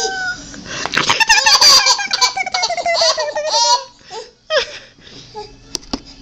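Baby laughing hard in a run of high-pitched belly laughs and giggles for about three seconds, then a short squeal. A couple of sharp clicks come near the end.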